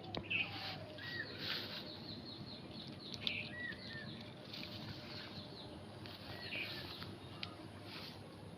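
Rustling and crinkling in short bursts as old plastic and litter are pulled out of garden plants and soil, with a few sharp clicks. A small bird chirps several times in the background.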